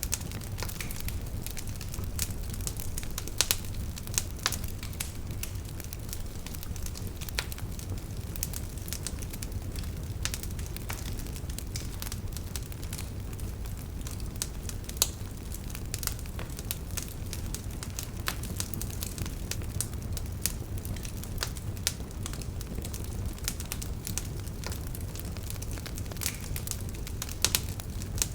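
Campfire burning, the wood crackling with many sharp, irregular snaps and pops over a steady low rumble of the flames.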